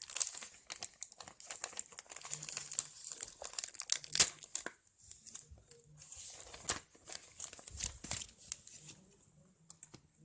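Plastic-foil trading card pack being handled and torn open, its wrapper crinkling with irregular crackles.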